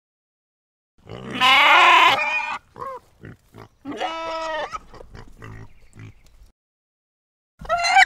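An animal sound effect: a loud, harsh cry about a second in, then a quick run of short calls and a longer, clearer pitched call. The calls stop a second or so before another cry starts near the end.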